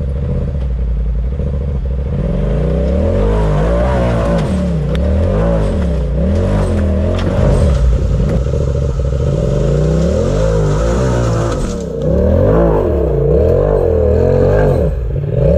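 Off-road vehicle engine revving hard, its pitch rising and falling again and again as the driver throttles it up a rocky ledge climb, with a brief let-off about three quarters of the way through.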